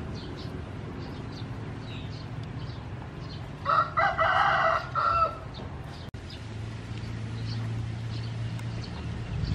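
A rooster crows once, about four seconds in, a call lasting about a second and a half. Faint short bird chirps sound throughout, and a low steady hum comes in about six seconds in.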